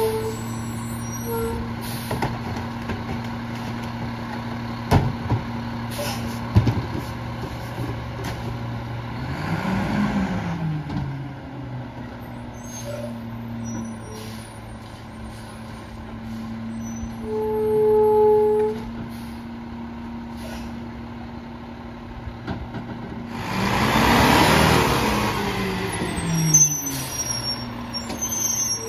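Mack LEU garbage truck's diesel engine idling, revving up and back down twice. The second rev comes with a long, loud hiss of air, like air brakes. There is also one short beep about two-thirds of the way through.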